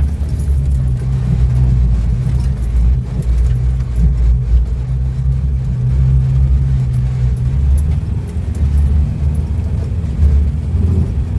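Land Rover Defender Puma's 2.4-litre four-cylinder diesel driving through soft sand, heard from inside the cab as a loud, steady low rumble scattered with small clicks and rattles. The driver thinks the knocking comes from the wheels in the guards.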